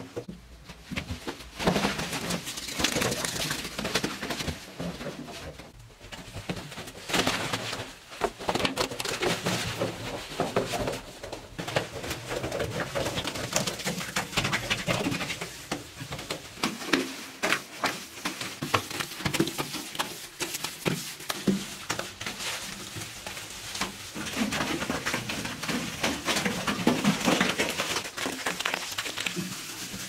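Irregular knocks, scuffs and rustling of people moving about and working inside a small earthen room, with birds calling.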